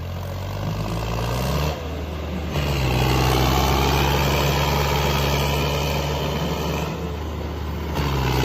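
Tractor diesel engine running hard. Its note steps up and gets louder a little after two seconds, holds steady, then eases off near the end.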